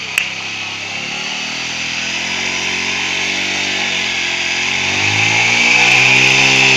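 Bajaj Pulsar motorcycle's single-cylinder four-stroke engine running as the bike pulls away slowly, revs and loudness climbing, with a clear rise about five seconds in. A single sharp click comes just after the start.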